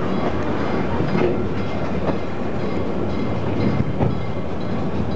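Metre-gauge museum train rolling slowly, heard from an open coach door: a steady rumble of the running gear with wheels knocking over rail joints every second or so.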